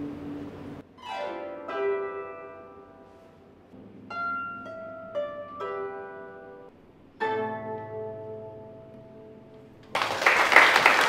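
Chinese konghou (harp with a bridged soundboard) plucked solo: rolled chords and single notes that ring out and fade, with pauses between phrases. Loud applause breaks out near the end.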